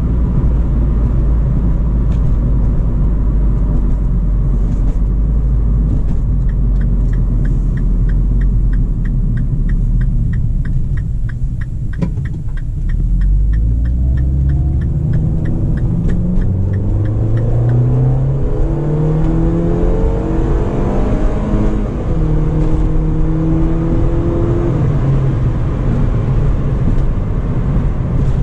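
Inside a 2013 Mini Cooper Convertible on the move: low road and wind rumble, with a turn-signal ticking about three times a second through the middle. After that, the four-cylinder engine accelerates up through the gears, rising in pitch several times and dropping at each upshift.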